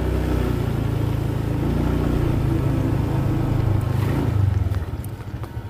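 Motorcycle engine running at low speed with the bike rolling over a dirt track, then easing off and falling in level about five seconds in as it slows.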